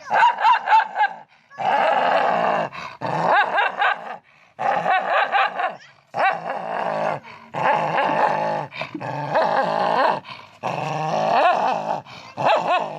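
A dog making a string of long, wavering, growly vocal calls, each a second or two long with short breaks between them.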